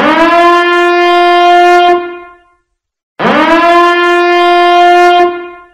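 A horn sound effect blown twice: each blast swoops up into one steady, brassy note, holds it for about two seconds, then fades, with a short gap between the two.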